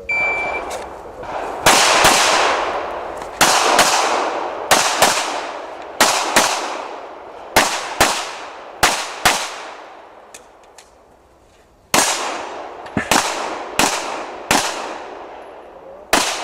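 Electronic shot-timer start beep, followed by a pistol fired rapidly in an IPSC stage. The shots come mostly as quick double taps, about eighteen in all, each with a short echo. Near the middle there is a pause of about two seconds with a couple of faint clicks before the shooting resumes.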